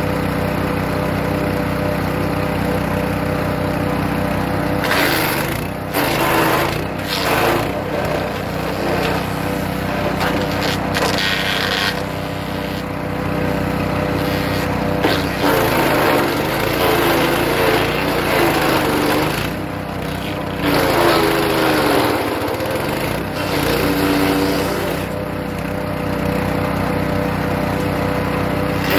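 Hecht 6208 wood chipper's small engine running steadily, then chipping birch branches from about five seconds in: repeated rough shredding bursts as wood is fed, with the engine bogging down under the load and picking back up.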